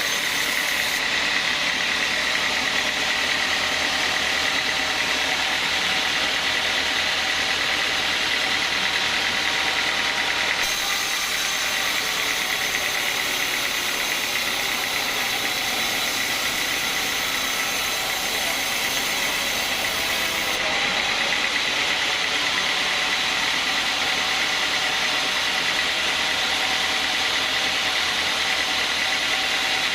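Sawmill band saw machinery running steadily, a constant high whine over dense mechanical noise.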